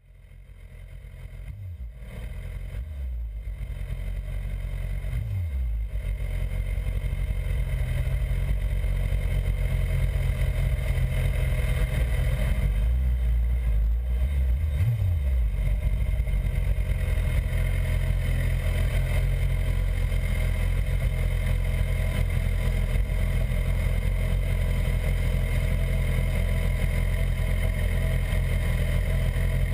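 BMW S1000RR inline-four sport-bike engine running at low revs, heard through the bike-mounted camera. It fades in over the first several seconds, shifts in pitch briefly a few times early on, then runs steadily.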